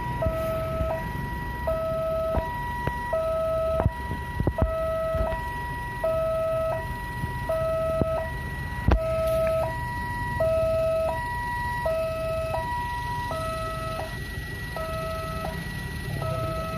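Railway level-crossing warning siren sounding a steady two-tone hi-lo alarm, about one high-low cycle every second and a half, with a few knocks along the way. The alarm keeps sounding although the train has already passed and none is coming; the crossing is controlled from the station.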